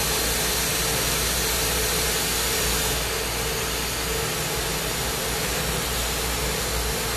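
Glassblowing bench torch burning, an even hiss of the flame with a steady hum underneath; the hiss drops slightly about three seconds in.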